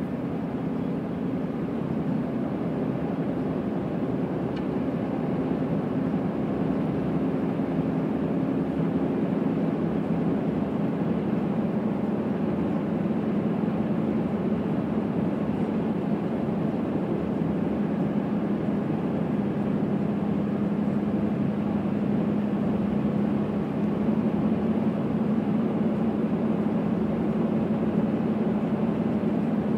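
Steady low mechanical drone, like machinery or an engine running, with a hum that drops slightly in pitch about ten seconds in.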